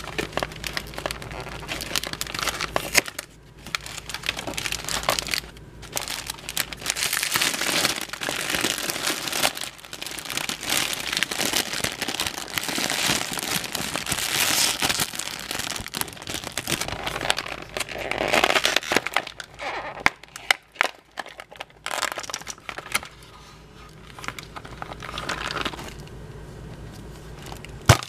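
Metallic foil wrapper of a large chocolate egg being crinkled and peeled off by hand, a dense crackling rustle. In the last third the crinkling thins out into scattered clicks and taps, with one sharp click near the end.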